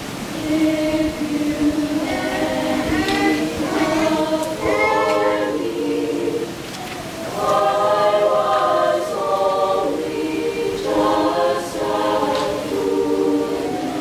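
A girls' choir singing in several-part harmony, in long phrases that swell and ease off, with brief breaths between them.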